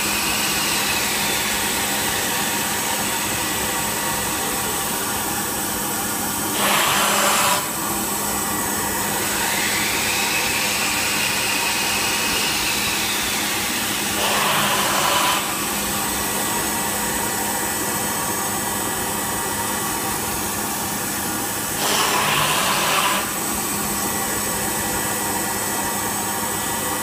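Thermwood five-axis CNC router running with a steady machine hum. A whine rises and then sags once in the first half. Three louder rushes of noise, each about a second long, come roughly every seven to eight seconds.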